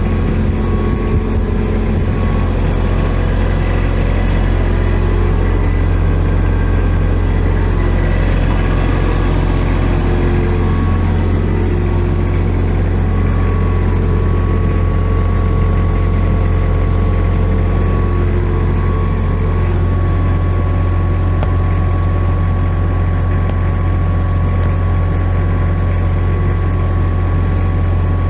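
Kubota F300SW engine-driven welder-generator running steadily: a constant low engine hum with a faint steady whine above it.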